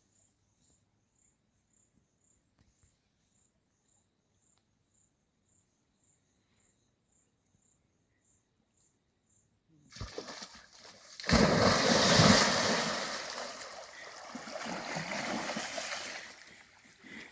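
Near silence for about ten seconds, then loud splashing of river water as impalas plunge into a river, strongest at first, then fading with a weaker second surge.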